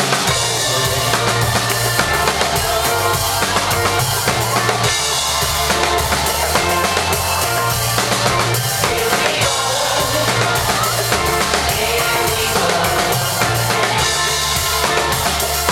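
Live band playing an instrumental stretch of a pop-rock song: a steady drum-kit beat with kick and snare, bass and electric guitars, loud throughout.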